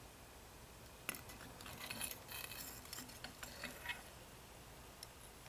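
Faint clicks, light metallic clinks and rustling from hand-fitting a new water pump gasket and plate over the driveshaft onto an outboard lower unit, starting about a second in and dying away after about four seconds, with a couple of lone ticks near the end.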